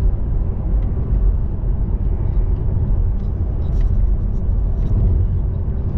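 Steady low road and tyre rumble inside a Tesla Model 3's cabin while it cruises at highway speed of about 57 mph on Autopilot. The electric car has no engine note.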